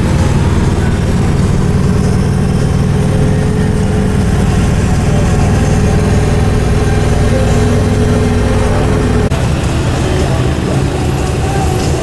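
Steady low rumble of a car's engine and tyres heard from inside the cabin while driving on a city road. The sound changes abruptly about nine seconds in.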